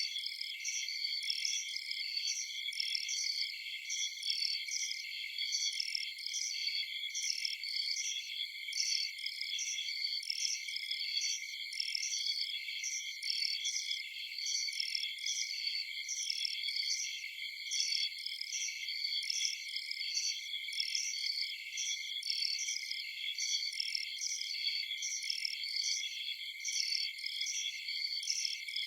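A dense chorus of crickets and other night insects: several steady high trills layered with a regularly repeating pulsed chirp, with nothing low underneath.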